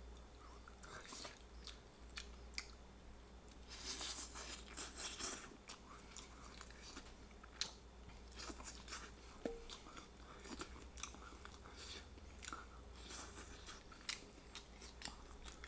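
Close-up chewing and biting of barbecue rotisserie chicken: soft, wet mouth clicks throughout, with a louder stretch of crunchy biting about four seconds in.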